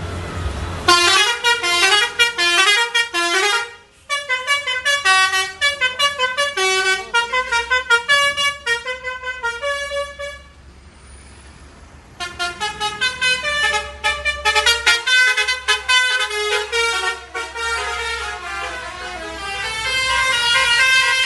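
Bus 'telolet' multi-tone musical horn playing rapid tunes of short, quick notes. It plays in two long runs with a pause of about two seconds halfway through, over a low steady rumble.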